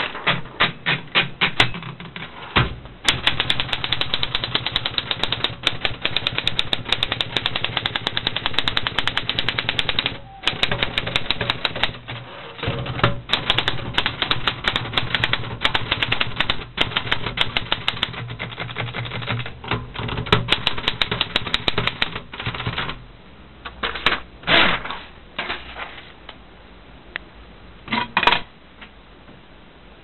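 1957 Olympia SG-1 manual desktop typewriter being typed on: a fast, dense run of sharp key-and-typebar clacks with two brief pauses. The typing stops about three-quarters of the way through, followed by a few separate clacks.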